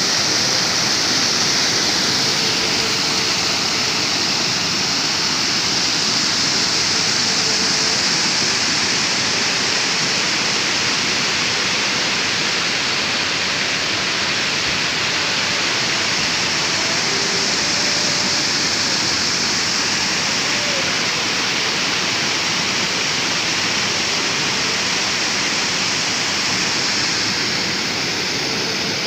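Water pouring over a low masonry weir and running across rocks below: a steady, loud rushing splash.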